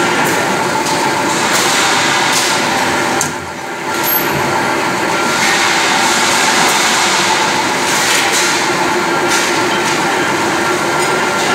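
Tube mill line running with its 40-ton flying cut-off shear: loud, steady clattering machine noise, with a few sharp knocks at irregular intervals.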